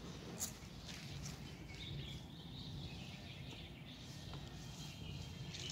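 Faint outdoor ambience: a steady low hum with a few faint high chirps and soft clicks.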